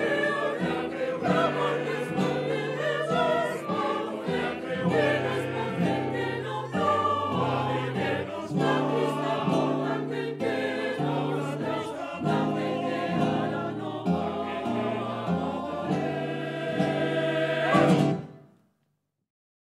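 Mixed chamber choir singing with classical guitar accompaniment in a rhythmic, dance-like piece. The music swells to a last loud chord and cuts off about 18 seconds in.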